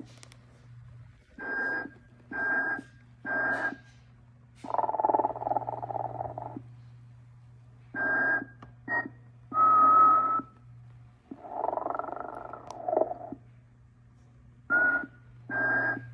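Telco Motionette Sleeping Santa figure snoring and whistling: a run of short snores, most with a thin whistle tone riding on them, and two longer drawn-out snores, the loudest with a whistle about ten seconds in. A steady low hum runs underneath.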